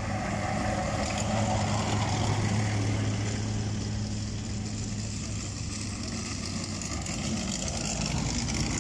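Engine of a WWII German half-track running as it drives past close by, loudest about two seconds in, then fading, with a quad bike's engine coming closer near the end.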